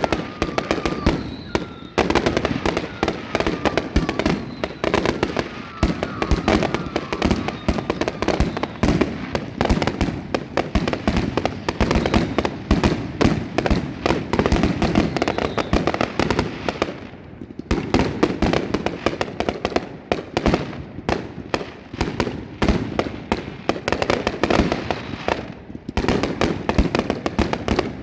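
Fireworks going off in a dense, rapid string of bangs and crackles, easing off briefly about two-thirds of the way through and again near the end before picking up.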